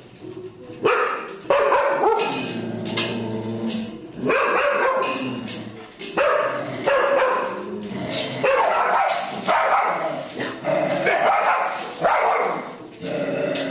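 Dogs barking loudly, high-pitched barks coming in a run of separate calls every second or two.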